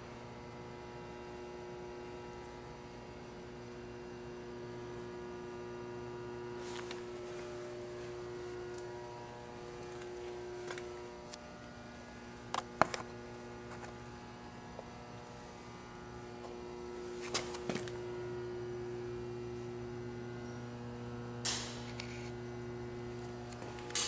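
Rademacher FPA cracker sheeter running, its electric roller drive giving a steady electrical hum. A few sharp clicks or knocks come through it, one about halfway through and a couple more later on.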